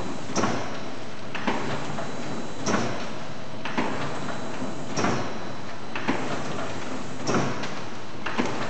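Volpak S-185 horizontal form-fill-seal pouch machine running in single-lane (simplex) mode: a steady mechanical running noise with a sharp stroke roughly every 1.2 seconds as it cycles. Every other stroke carries a short hiss.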